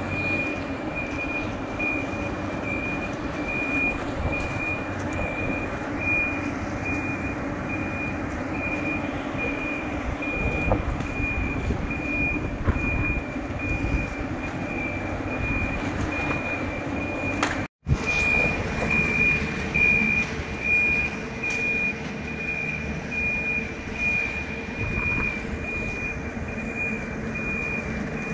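Motion warning beeper of a mobile boat hoist (travel lift) as it drives along carrying a yacht: one high beep repeating about twice a second over the steady low running of the machine. The sound breaks off for a moment near the middle.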